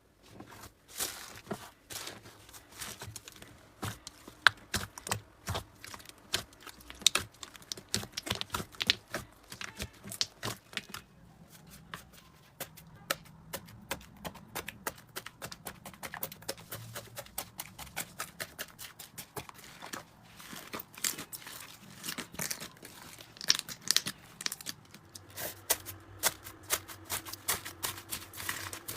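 Slime being squeezed, pulled and poked by hand, with a dense run of small crackling pops and wet clicks that thin out briefly twice.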